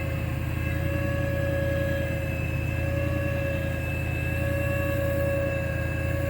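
Steady machinery running without change: a low drone with a steady high whine above it.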